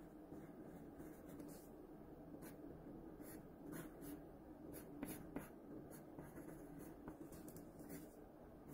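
Graphite pencil drawing on paper: faint scratching in short, separate strokes.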